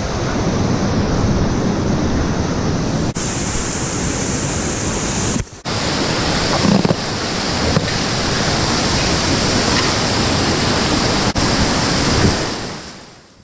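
Steady rush of whitewater rapids close by, with brief drop-outs about three and five and a half seconds in, fading away near the end.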